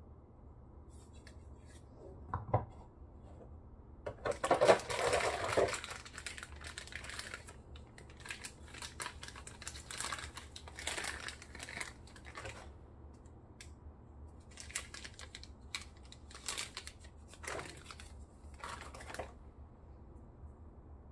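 Clear plastic wrapping crinkling and rustling in irregular bursts as a PVC figure is pulled out of its bag, loudest a few seconds in. A single knock comes about two and a half seconds in.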